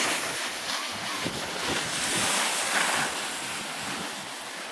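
A rushing hiss of skis sliding over snow mixed with wind on the microphone, swelling at the start and again about two to three seconds in.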